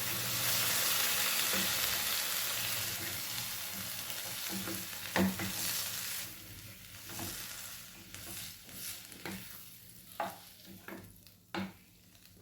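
Pressure-cooked chickpeas tipped into a kadai of hot spiced tomato masala, sizzling at first and dying away over several seconds. A spoon stirs them, knocking against the pan several times.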